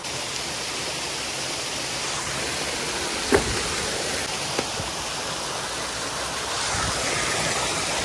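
Steady rush of water falling over a small waterfall in a rocky mountain stream. A sharp knock sounds a little over three seconds in, with a fainter click about a second later.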